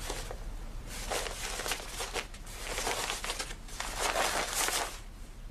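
Rustling and crinkling of fabric being handled and sorted, in irregular bursts that grow louder near the end.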